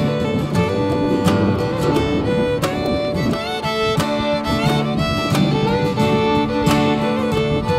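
Background music: a fiddle playing held and sliding notes over a plucked guitar, in a bluegrass style.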